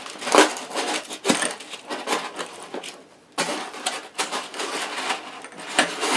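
A small metal rod being worked out of a snug polystyrene foam packing tray wrapped in loose plastic film: irregular rustling and crackling with several sharp clicks and knocks, the loudest about half a second in.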